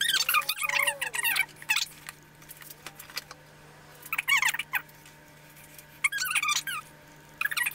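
A person's voice sped up into squeaky, high-pitched chatter. It comes in short bursts with gaps between, the longest in the first second and a half, over a faint steady hum.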